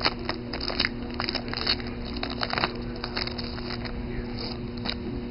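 Trading-card pack wrapper crinkling and tearing as a pack is opened and the cards handled: a run of sharp crackles, dense for the first few seconds and then sparser, over a steady low hum.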